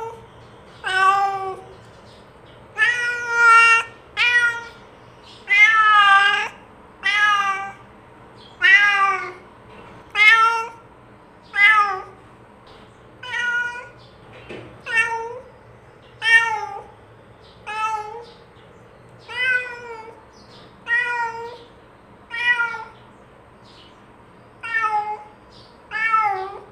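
Domestic cat meowing over and over, about one meow every second and a half, each a short call that rises and falls in pitch.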